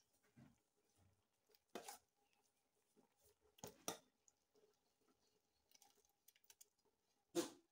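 Faint stirring of thick soup in a large aluminium pot, with a few short knocks of the metal spoon against the pot: one about two seconds in, two close together near four seconds, and one near the end.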